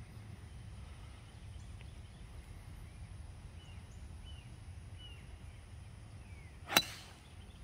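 A golf driver strikes a teed ball once, a single sharp crack about seven seconds in; the shot is slightly topped. Faint birdsong chirps are heard before it.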